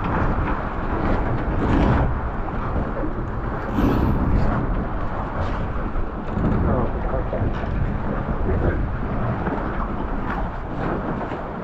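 Gusty wind buffeting the microphone over the rush and splash of choppy water against a small sailing boat's hull, with a few knocks and rustles of rope and gloves being handled.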